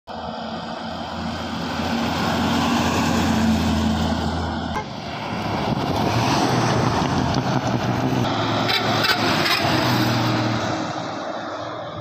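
Diesel coach buses driving past on a highway, engine and tyre noise swelling as each one approaches and fading as it goes by. The sound breaks off and starts again with a second bus about five seconds in.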